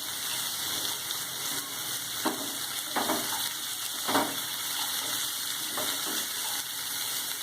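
Chopped vegetables stir-frying in hot oil in a pan, a steady sizzle, with a few short knocks of the spatula against the pan as they are stirred, cabbage just going in.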